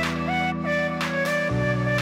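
Background music: a melody with short sliding notes over held low chords and a steady beat, the chord changing about one and a half seconds in.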